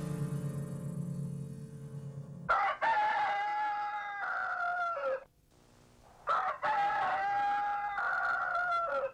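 A rooster crows twice, each crow a long call that drops in pitch at the end. Before the first crow, a low held tone stops about two and a half seconds in.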